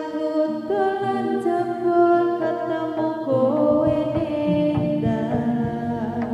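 Live jaranan gamelan music with a voice singing a slow melody of held, gliding notes over the ensemble; low drum beats join about halfway through.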